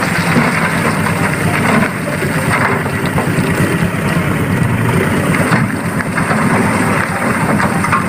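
Isuzu Elf dump truck's diesel engine running steadily under load while its hydraulic hoist tips the bed up, dumping its load of soil out the back.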